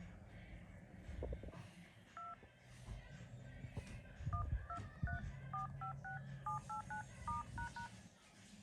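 Phone keypad touch tones from an iPhone: a single beep, then about twelve short beeps in quick succession, about three a second, stepping through the keys in order.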